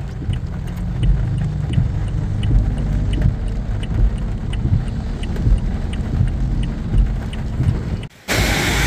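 Low steady rumble inside a car cabin in heavy rain, the engine running and the windshield wipers working, with faint regular ticking. About eight seconds in it drops out for a moment and cuts to a louder, hissing outdoor noise.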